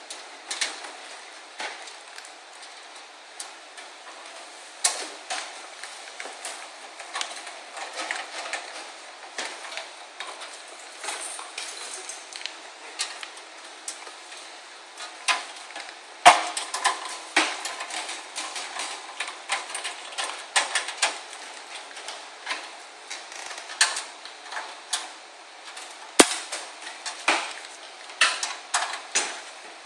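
Irregular small metallic clicks, taps and clinks of screws, a screwdriver and parts against a steel PC case as a power supply is screwed in, with two louder sharp knocks partway through.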